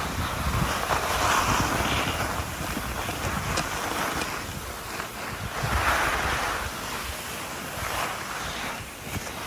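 Skis sliding and scraping over groomed snow through a series of turns, with louder swishes about a second in and around six seconds, over wind rumbling on the microphone.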